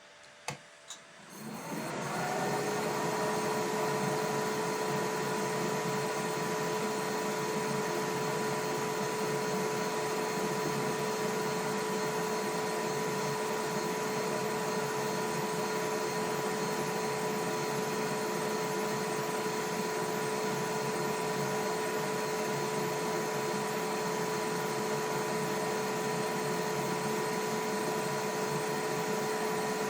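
A couple of clicks, then the xTool F1 Ultra fiber laser engraver starts up and runs steadily: an even fan-like rush with a steady two-note whine.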